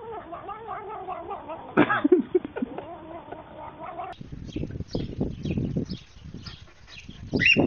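Tabby cat yowling in long, wavering, drawn-out cries, with a louder cry about two seconds in. About four seconds in, the yowling gives way to quieter scattered short rustles and taps.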